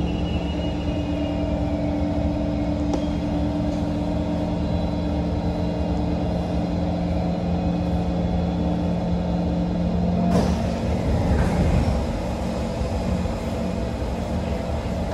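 Kawasaki C151 metro car standing at a platform, its onboard equipment humming steadily. About ten seconds in, the car's doors slide open with a sudden rush of sound and the platform noise comes in.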